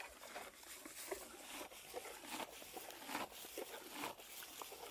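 Red deer stag grazing: grass being cropped and chewed, heard as a quick, irregular run of soft crunches and small tearing clicks.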